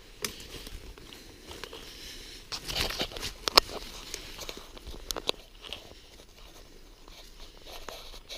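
Footsteps crunching and rustling through forest leaf litter and brush, with scattered twig snaps; a louder push through vegetation about three seconds in, ending in a sharp snap.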